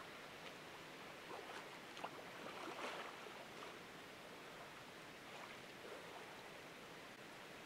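Faint splashing and lapping of lake water as a swimmer moves through it, most of the splashes between about one and three seconds in, over a steady soft hiss.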